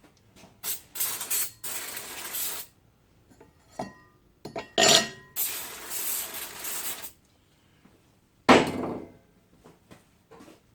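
Aerosol brake cleaner spraying onto a new brake disc in two long hissing bursts, stripping off the thin film of storage oil meant to stop corrosion. A single sharp knock comes about three-quarters of the way through, with a few small clicks.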